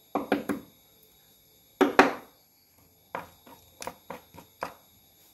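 Sharp knocks and scrapes of hands and a small tool on a rice cooker's plastic bottom cover as dirt and dead insects are cleared out. There are three quick strokes at the start and a louder one about two seconds in, then a faster run of about seven lighter ones.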